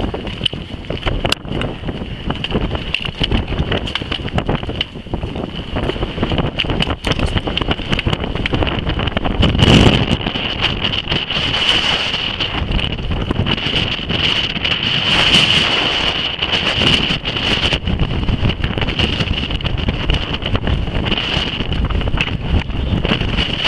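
Strong, steady summit wind buffeting the camera microphone, a rumbling roar that swells in gusts, with a high steady whistle that rises and falls with the gusts.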